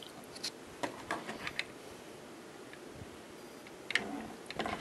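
A few faint, short clicks, a quiet stretch, then soft handling noise near the end as a small die-cast model car is picked up by hand.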